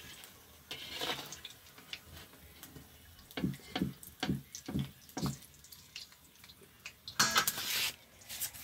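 Gulgule frying in hot oil in a metal karahi: a steady sizzle with crackles and pops. A slotted metal ladle knocks against the pan as the fritters are lifted out, about six knocks near the middle, and a louder hiss comes near the end.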